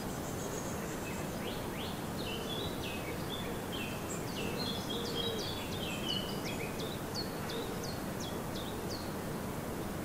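Songbirds singing: a run of short, high chirps and quick downward-sliding notes that come thickest in the middle, over a steady low background hiss.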